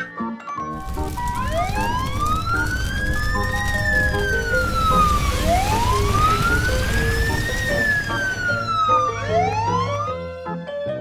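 Fire-engine siren wailing: a slow rise then a quicker fall, twice in full, with a third rise starting near the end. Under it runs a steady rushing hiss, and there is background music.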